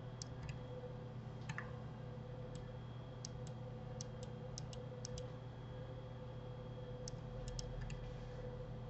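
Light, scattered clicks of a computer mouse, some in quick pairs and short clusters, over a faint steady electrical hum.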